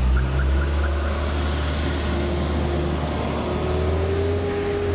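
Motor vehicle engine running: a steady low rumble with a drone that rises slowly in pitch.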